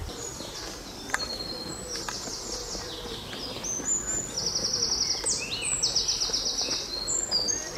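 Songbirds singing in the tree canopy, with short whistled notes and two fast trills of rapidly repeated high notes in the middle. A single sharp click sounds about a second in.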